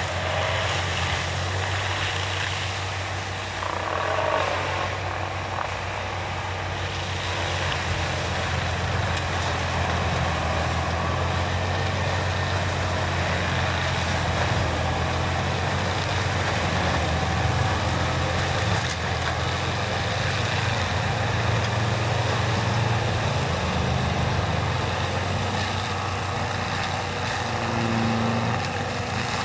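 John Deere 6190R tractor's six-cylinder diesel running steadily under load, driving a rear-mounted FAE hammer mulcher that shreds brush and branches on the ground.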